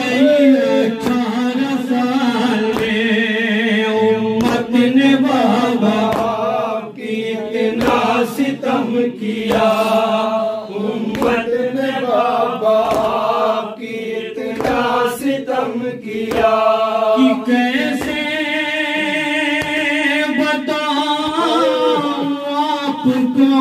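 Men chanting a Shia noha, a mournful Urdu lament. A lead male voice sings into a microphone with other voices joining in.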